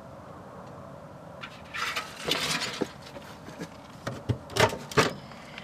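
Microwave oven door being handled and pulled open by hand: a stretch of rustling and scraping about two seconds in, then several sharp clicks and knocks from the door and latch near the end.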